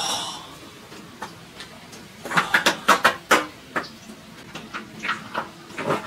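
Irregular sharp clicks and crunches, with a quick cluster of them between about two and three and a half seconds in.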